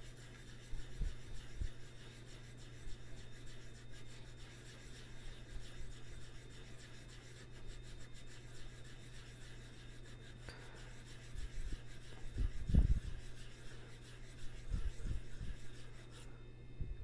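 Back of a cue tip rubbed round and round on 220-grit sandpaper: a quiet, steady scratching, roughing the base so the glue will hold, with a few low knocks about three-quarters of the way in.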